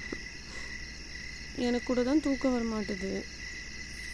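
Crickets chirring steadily at night, with a person's voice making a short wordless murmur in the middle, louder than the crickets.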